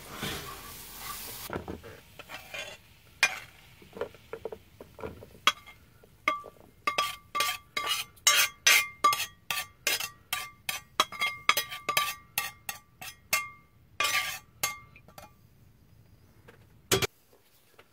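Spatula scraping and tapping a cast iron skillet as the cooked peppers and onions are scraped out into a plastic tub: a brief sizzle at the start, then a fast run of clinks with the pan ringing faintly, and a couple of heavier knocks near the end.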